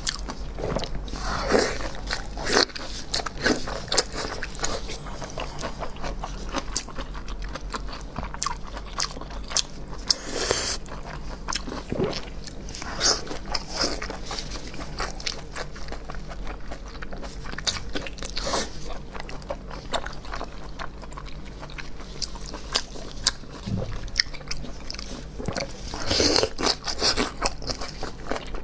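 Close-miked eating sounds: biting into and chewing a chewy, spicy red rolled sausage, with many small wet clicks from the mouth.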